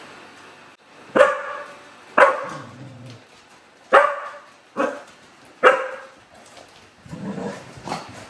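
Shetland Sheepdog barking five sharp times in a row, with softer sounds trailing after.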